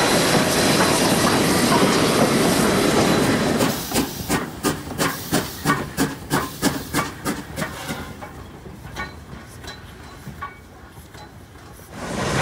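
Steam locomotive: a steady loud hiss of steam, then a run of rhythmic beats about three a second starting about four seconds in and fading away, leaving a quiet stretch before loud noise returns near the end.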